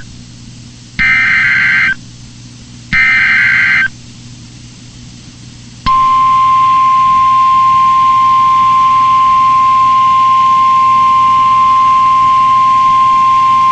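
NOAA Weather Radio Emergency Alert System data header: two short buzzy digital bursts about a second long, two seconds apart, over faint radio hiss. About six seconds in, the 1050 Hz warning alarm tone starts, one steady high beep held without a break. Together they mark the start of a new weather warning alert that switches on weather radio receivers.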